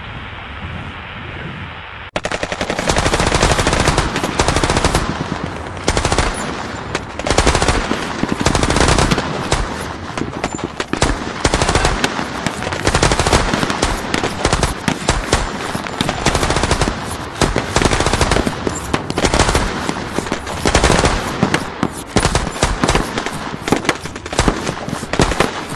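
Sustained automatic gunfire: long bursts of rapid rifle shots, several weapons overlapping. It breaks in suddenly about two seconds in, after a muffled low rumble.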